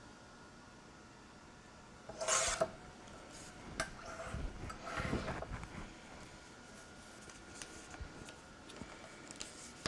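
Paper being cut and handled: a short rasping scrape about two seconds in, then quieter rubbing, rustling and a few small clicks.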